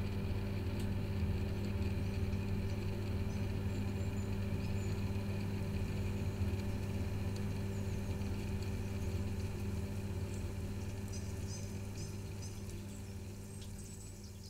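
Steady electrical-mechanical hum of ventilation plant: air-handling units and ductwork running, with a low mains-like drone and a layer of rushing air, fading out gradually over the last few seconds.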